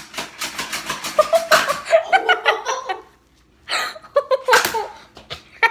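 A girl laughing loudly in rapid bursts, with a short break about three seconds in before the laughter picks up again.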